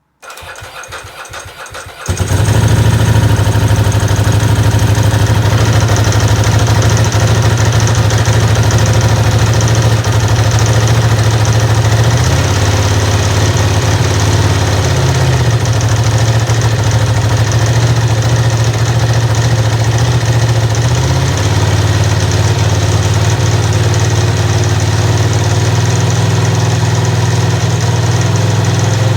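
Ducati ST4's 916 cc V-twin cold-started after sitting all winter: the starter cranks it for about two seconds before it catches, then it idles steadily through the stock exhaust. The idle speed shifts slightly a few times partway through.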